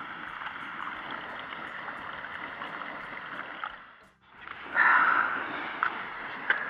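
Small gas canister camping stove burner hissing steadily under a cooking pot. The hiss drops away briefly about four seconds in and returns louder a moment later, with a couple of light clicks near the end.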